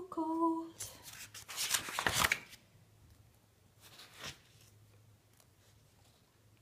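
Paper pages of a spiral-bound sketchbook being turned: a loud rustle about two seconds in and a shorter one a little after four seconds.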